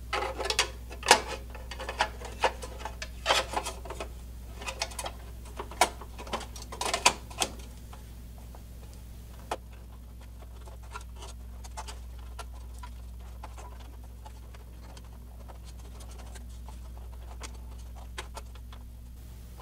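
Plastic and metal clicks and knocks of a PC's plastic airflow shroud being fitted and cables being pushed into place inside the case, many in quick succession over the first eight seconds or so, then only a few faint clicks as the wiring is handled, over a steady low hum.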